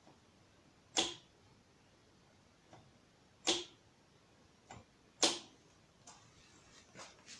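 Sharp metallic clicks from a Kugoo M5 electric scooter's rear disc brake and wheel as the brake is worked by hand. There are three loud clicks about two seconds apart, with fainter ones in between. Each time the brake closes, the unevenly set caliper pushes the disc sideways and the wheel shifts, which the owner takes for a brake set up wrongly at the factory.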